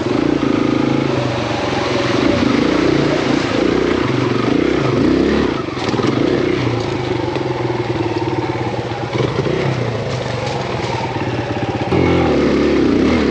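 Kawasaki KLX140RF dirt bike's four-stroke single-cylinder engine working up a steep rocky climb, the revs rising and falling again and again as the throttle is worked. It is loudest in the first second and again near the end.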